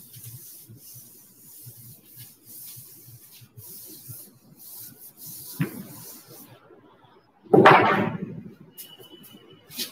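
Blackboard duster wiping chalk off a chalkboard in quick repeated strokes, each a soft scratchy hiss, about two a second. About 7.5 s in, a single loud thump.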